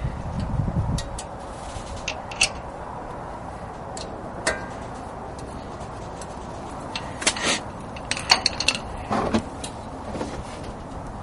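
Hand tools and metal parts clicking and clinking at a car's wheel hub while the nut holding the anti-lock brake sensor cable is worked off. The clicks are scattered, with a quick cluster about seven to nine seconds in, over a steady background rush.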